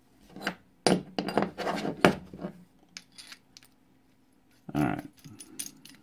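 Small metal parts clicking and clinking as they are handled: washers being swapped on an aluminium adjustment knob and its screw, then fitted against the powder bar. Scattered sharp taps, the loudest about one and two seconds in, with a few lighter ticks near the end.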